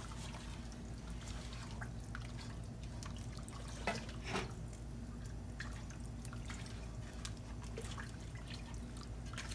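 Wooden spoon stirring thin broth in an enameled cast-iron pot: soft liquid sloshing and dripping with faint light clicks of the spoon, a couple of them a little louder about four seconds in.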